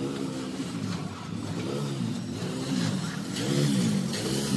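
An engine revving up and down over and over, its pitch rising and falling about once a second.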